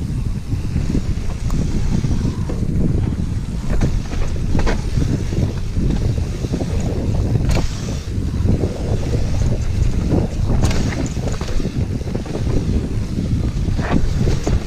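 Wind buffeting the camera microphone during a fast descent on an Orbea Rallon enduro mountain bike, with tyres rolling over a dirt trail and the bike rattling. Several sharp knocks from the bike hitting bumps.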